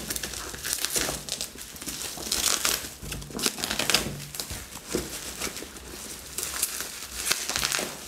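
Plastic bubble wrap crinkling and rustling in an irregular run of crackles as it is pulled and peeled off a cardboard box by hand.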